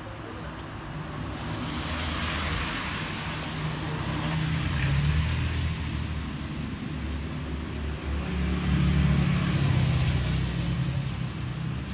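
A motor vehicle engine running with a broad hiss. It swells a little over a second in and is loudest in the last few seconds.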